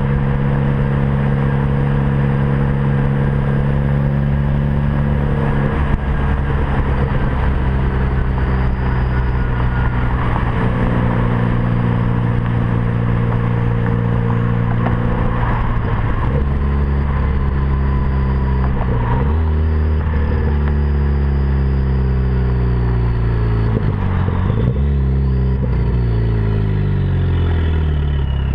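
Ford Focus ST's turbocharged 2.0-litre EcoBoost four-cylinder, breathing through a 3-inch catless downpipe, running steadily with a faint high turbo whistle over the engine note. About halfway through the engine note drops in steps, then falls gradually as the engine winds down near the end.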